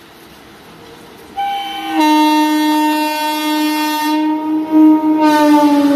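Indian Railways locomotive horn on a train running through at speed: a short note about a second and a half in, then a long loud blast from two seconds in. The horn's pitch drops slightly near the end as the train passes.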